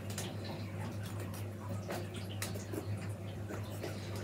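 Buff willow rods rubbing and ticking as they are wound round one another to form a wreath hoop, with a few sharp clicks about two seconds in, over a steady low hum.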